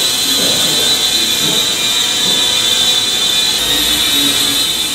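DroneX Pro toy quadcopter in flight: its small motors and propellers give a steady high-pitched whine over a hiss.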